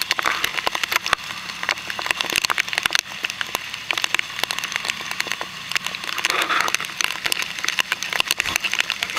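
Buggy ride noise: dense, irregular crackling and clattering over a faint steady low engine drone.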